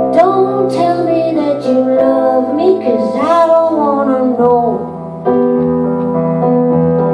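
Live song: a woman sings long notes that slide up and down over chords on a Roland keyboard. About five seconds in, the voice stops and the keyboard chords carry on alone.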